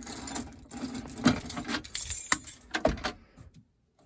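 A ring of metal keys jangling and clinking as it is handled, with a few sharper clicks, dying away after about three seconds.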